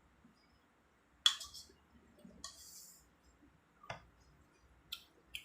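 Tableware clinking on a plate: a sharp clink about a second in, a short scrape a little later, then a few lighter clicks near the end.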